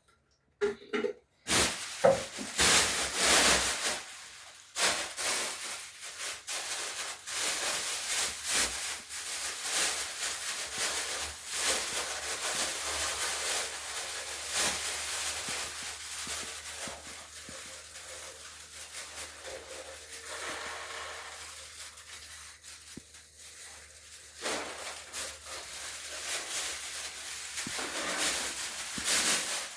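Cloth scrubbing and wiping a surface in a small room: a rasping rub in quick, irregular strokes that starts about a second and a half in, after a few short knocks.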